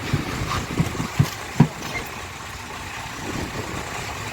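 Sportfishing boat's engine running with a steady low rumble. A few low thumps come in the first two seconds, the loudest about a second and a half in.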